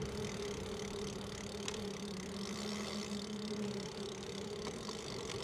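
A bicycle rolling along a paved path, heard from a microphone on its frame: a steady hum with two low held tones over tyre and wind noise, with a faint tick about a second and a half in.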